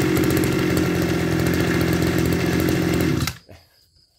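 Tanaka SUM328 brush cutter's small two-stroke engine running steadily, then shut off, stopping abruptly a little over three seconds in.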